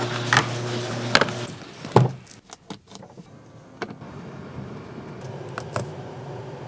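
A steady low hum that stops about a second and a half in, with a handful of sharp clicks and knocks scattered through, leaving a fainter steady hum behind.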